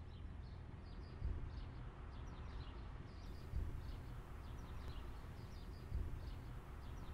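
Outdoor street ambience: small birds chirping repeatedly in short, falling notes over a steady low rumble, with a few brief low thumps.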